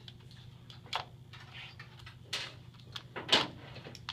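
Wood type and wooden riglets being pushed, slid and knocked into place by hand on a letterpress bed: a few scattered wooden clicks and clatters, the loudest a little over three seconds in, over a steady low hum.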